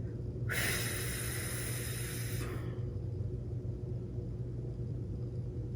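Steady low hum of room noise, with a soft hiss that starts about half a second in and lasts about two seconds.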